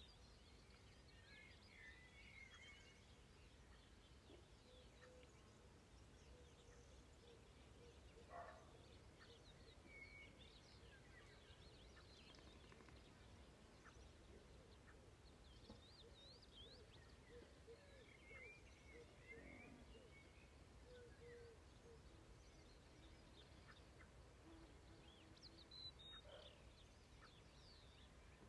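Faint birdsong: many small songbirds chirping and trilling on and off, over a low steady rumble.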